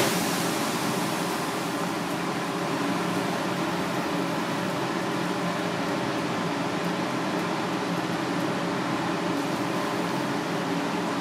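Steady whirring hiss and low hum of a kitchen ventilation fan, unchanging throughout.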